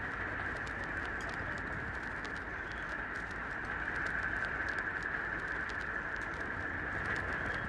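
Puppy suckling at its mother's teat, a run of small wet clicks and smacks, over a steady high-pitched background hiss.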